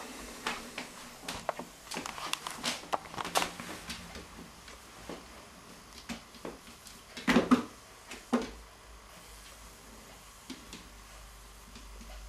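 Cats' paws tapping and thumping on a wooden parquet floor as they pounce and bat at a bee: a quick run of light taps and knocks, then a louder knock about seven seconds in and another just after.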